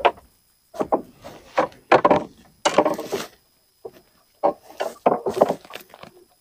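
Irregular knocks and scrapes of a landing net holding a largemouth bass against the floor of a canoe, in a run of uneven thumps and rubs.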